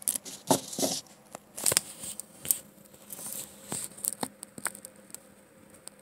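Scattered light clicks, taps and rustles of small plastic toy figures and props being handled close to the microphone.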